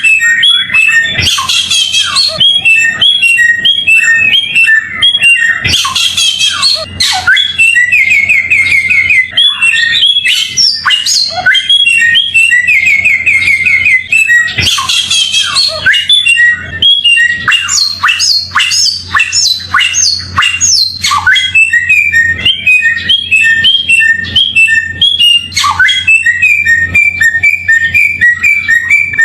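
A samyong songbird singing without pause: quick runs of repeated chirping notes, broken every few seconds by louder bursts of harsh, rapid squawking chatter.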